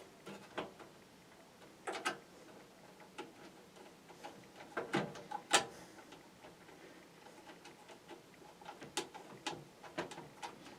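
Scattered sharp metal clicks and taps, about a dozen spread irregularly, from mounting screws and a screwdriver being worked against a PC case while a power supply is screwed in.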